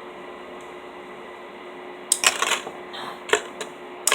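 Plastic drinking straws and a small plastic clip being handled and pushed together: a quick cluster of clicks and rattles about halfway through, then a few single sharp clicks, over a steady low hum.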